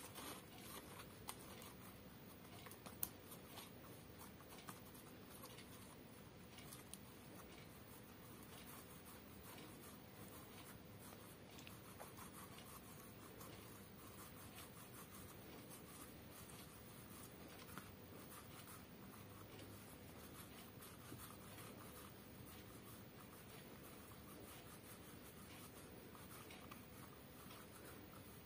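Faint soft rubbing of palms rolling soft clay back and forth against a tile floor, with a few small taps near the start.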